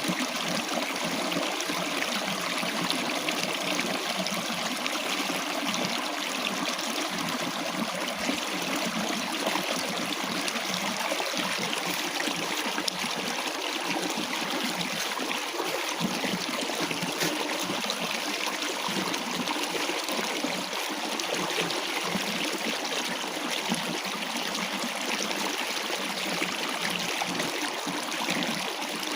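Water flowing steadily in a small rural stream, an even, unbroken running-water sound.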